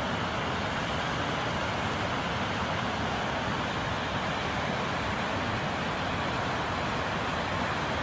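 Gullfoss waterfall's water rushing, a steady, unbroken noise.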